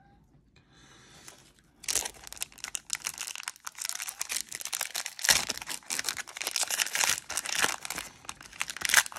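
Crinkling and tearing of a foil trading-card pack wrapper as it is ripped open and the cards are pulled out. The crackling starts about two seconds in and keeps going in a dense run of small crackles.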